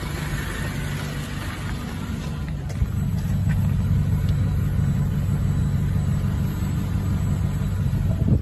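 Toyota Hiace van's 1TR four-cylinder petrol engine running at a steady idle, heard as a low rumble from beneath the van. It grows louder about three seconds in.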